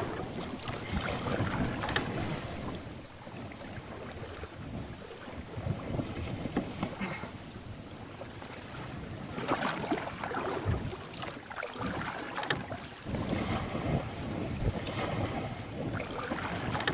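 River water splashing and lapping around a canoe, swelling and fading irregularly, with wind on the microphone and two sharp knocks, one about two seconds in and one near the end.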